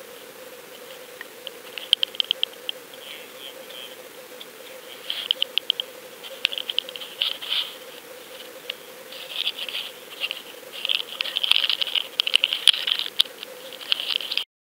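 Bursts of quick, light rattling and scratching from hands working a salmon and the hook free in a landing net, over a faint steady hum.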